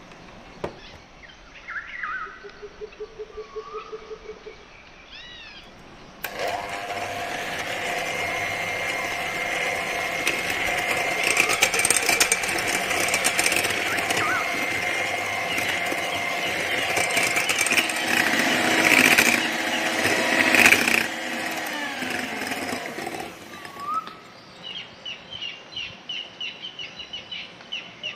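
Electric hand mixer running steadily, its wire beaters whipping eggs and sugar into a stiff meringue-like foam; it starts about six seconds in and stops about four seconds before the end. Birds chirp quietly before and after it.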